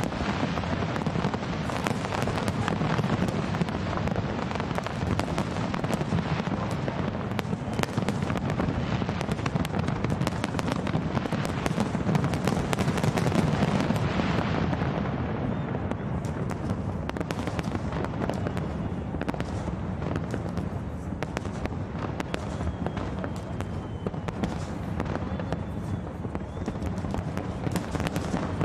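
Fireworks display of aerial shells bursting in quick succession: a dense, continuous run of bangs and crackles over a low rumble. The crackle grows duller and thinner about halfway through.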